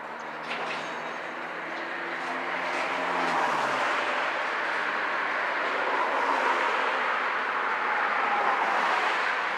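Freight train cars rolling past on the rails, open-top hopper cars and tank cars: a steady rumble of wheels on rail that grows louder after about three seconds.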